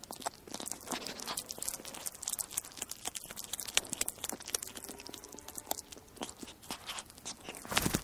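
A weasel eating: a fast, irregular run of crunching and chewing clicks, with one louder crunch just before the end.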